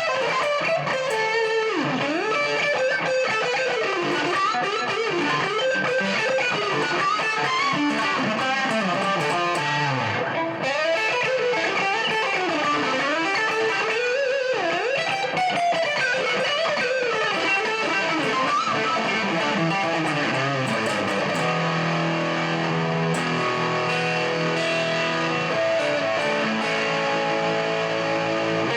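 Career Les Paul-style electric guitar played through distortion: lead lines with string bends and slides, moving about two-thirds of the way in to held notes that change about once a second.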